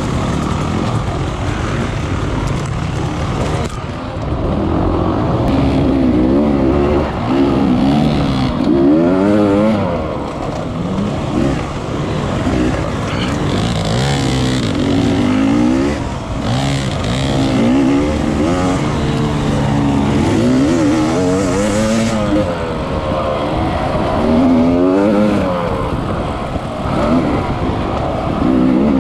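Dirt bike engine revving up and down over and over as it is ridden hard, its pitch rising and falling every second or two.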